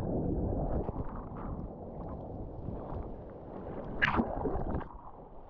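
Ocean surf washing around and over a handheld GoPro in the water: a continuous low rush and churn of water with deep rumble, and a sharp splash about four seconds in.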